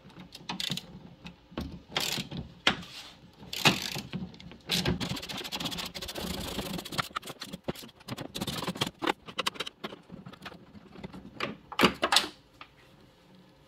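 Hand ratchet clicking in rapid runs as a 10 mm bolt holding the headlight is loosened through a set of extensions, with sharp clinks of the tools on metal, the loudest about four seconds in and near the end.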